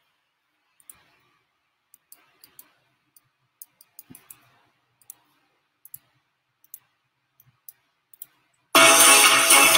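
Faint, irregular clicks from operating a computer, then loud intro music with light percussion starts suddenly near the end as the show's intro and outro video is played.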